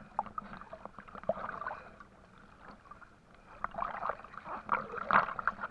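River water sloshing and splashing as a person wades and moves an arm through it, with a run of louder splashes from about three and a half seconds in.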